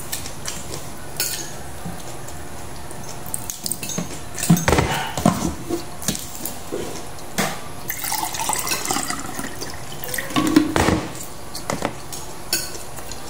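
Spoons clinking and scraping on ceramic plates and a bowl during a meal, in scattered short clatters, the loudest about four to five seconds in and again near ten seconds in.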